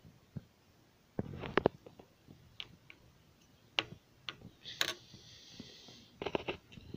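Light clicks and taps from handling a Hen & Rooster small stockman pocketknife with its three blades open, as it is picked up, turned over and set back down in its box. The loudest clicks come in quick clusters near the start and near the end, with a soft rustle about five seconds in.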